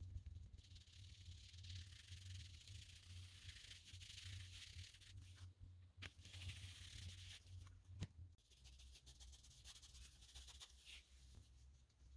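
Faint scrubbing of a cloth pad rubbing dye into a leather panel, in stretches, with two light taps about six and eight seconds in.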